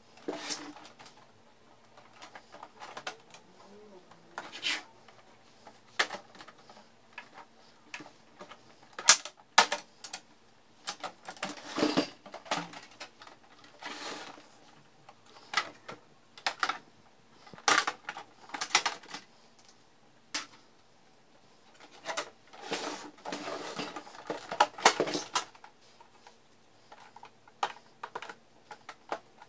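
Irregular plastic clicks, snaps and short rattles from an HP Color LaserJet printer's covers and panels being opened and pulled off by hand, with busier clattering about twelve seconds in and again near the end.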